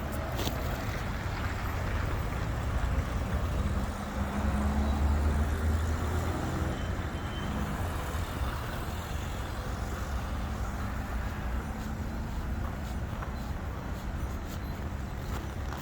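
Steady road traffic rumble. A heavier vehicle's engine passes about four seconds in and is loudest for a couple of seconds.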